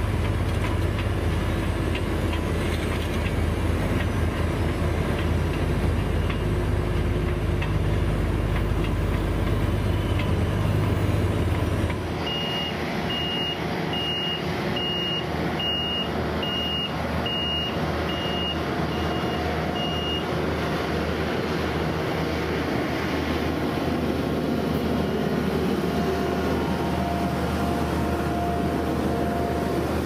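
A Dynapac tracked asphalt paver's diesel engine running with a steady deep hum. About twelve seconds in the sound changes to a tandem road roller running, with a reversing alarm beeping about ten times, under a second apart.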